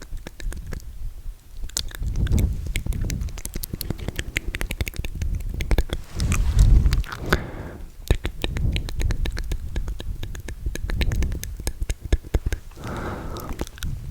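Wet mouth sounds very close to a microphone: dense, rapid tongue clicks and lip smacks with low, moist thuds, coming in bursts, the loudest about halfway through.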